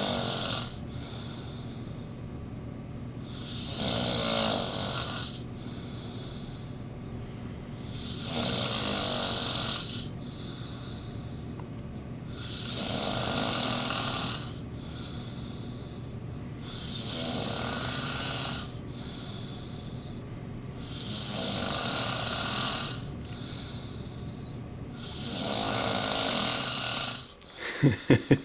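A man passed out asleep, snoring deeply: seven long, rasping snores come evenly, about one every four and a half seconds, with quieter breathing between. Near the end a snore breaks into a rapid fluttering rattle.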